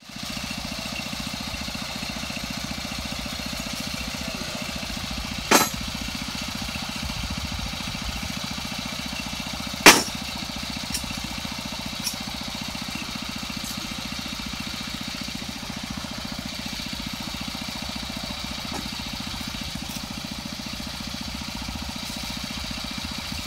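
Small engine of a Cambodian bamboo train (norry) idling steadily, with two sharp knocks about five and a half and ten seconds in.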